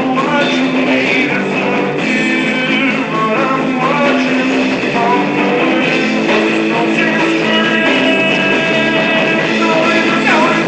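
Guitar music: sustained chords and notes with a few sliding, bending pitches.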